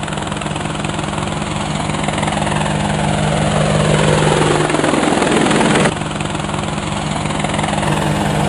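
Quadcopter drone propellers buzzing with a steady hum. A falling sweep builds through the middle and cuts off suddenly about six seconds in, while the buzz carries on.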